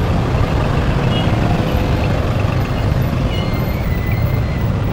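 Yamaha FZ V3 motorcycle's single-cylinder engine running as the bike rolls slowly through dense traffic: a steady low rumble mixed with the noise of the surrounding vehicles.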